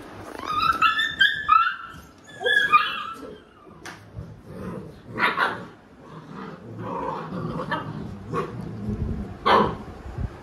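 Yellow Labrador mother and puppies play-fighting: high-pitched yelps and yips in the first three seconds, then several short barks and growls.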